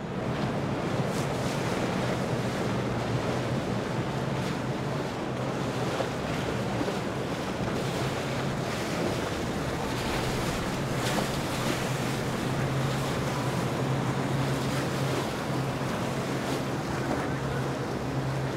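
Boat motor running with a steady low hum under a continuous rush of water and wind noise on the microphone.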